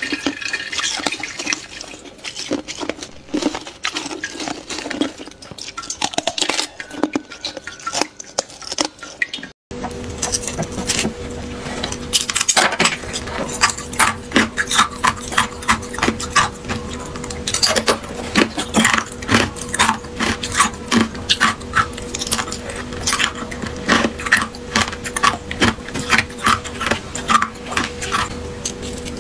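Thin, clear ice being cracked and crunched: irregular crisp snaps and crackles. After a sudden break about a third of the way in, the crackling becomes denser over a faint steady hum.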